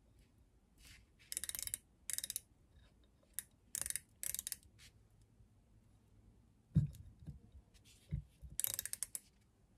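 Micrometer ratchet stop clicking in several short, rapid runs as the thimble is turned down onto a deck height plate. The clicking is the sign that the spindle has closed on the plate at its set measuring pressure. Two dull knocks come in the later part.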